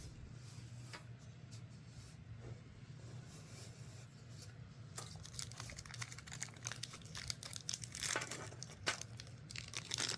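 Plastic packaging crinkling, rustling and tearing as it is handled and opened, starting about halfway through in quick irregular crackles. A faint steady low hum runs underneath.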